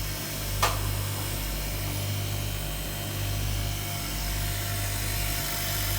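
Freezer refrigeration compressor running with a steady low mains hum, with a single sharp click about half a second in.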